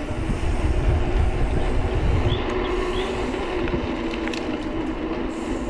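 Wind buffeting the microphone of a riding POV camera, a gusty low rumble that is heaviest in the first two seconds and then eases, over a steady low hum and a few faint clicks.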